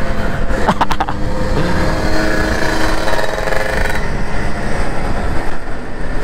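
Motorcycle engine running while riding in traffic, rising in pitch as it accelerates during the first few seconds, with wind rushing over the microphone.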